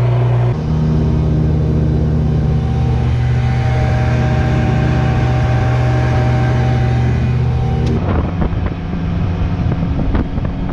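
An engine running steadily with an even hum. About eight seconds in the sound changes to a rougher, noisier engine sound.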